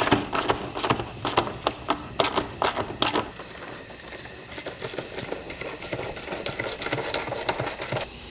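Small hand ratchet with an 8mm socket clicking as it tightens worm-gear hose clamps on a rubber air intake tube. Spaced, louder clicks over the first three seconds, then a quieter, faster run of clicks.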